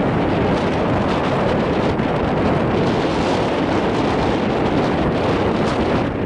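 Wind blowing across the microphone: a loud, steady rush of noise with no other distinct sound standing out.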